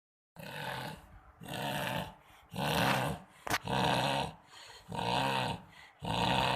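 Dog snoring in a steady run of loud snores, about one a second, each with a revving, motorbike-like sound.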